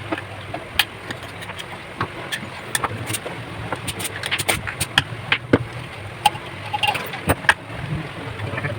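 Stick-welding arc from a homemade inverter welder during a test weld: irregular crackling with sharp pops over a steady low hum.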